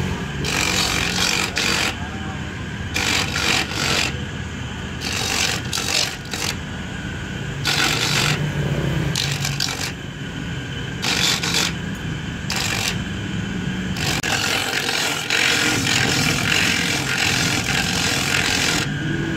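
Electric coconut grater running, its motor humming while a coconut half is pressed against the spinning toothed disc. Rasping scrapes come and go every second or so as the white meat is shredded off the shell.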